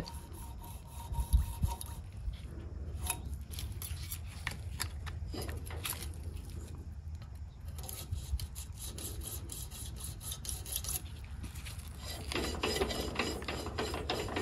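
Light metal-on-metal scraping and clicking of a feeler gauge drawn through the air gap between the ignition coil and the flywheel magnet of a Kohler Magnum 18 engine, with the flywheel turned by hand, checking the coil gap. The scraping becomes busier near the end. A little rubbing of the gauge is what a correctly set gap should give.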